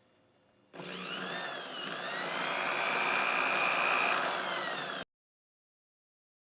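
Handheld electric power tool running on a metal can, its motor whine dipping and rising in pitch under load. It starts abruptly about a second in and cuts off sharply near the end.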